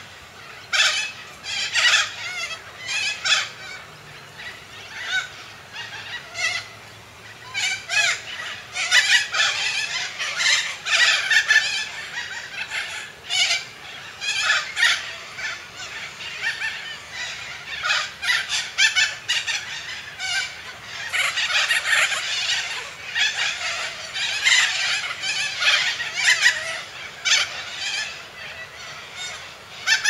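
Cockatoos calling: harsh, raspy calls repeated in quick runs, easing off briefly a few seconds in and again about halfway.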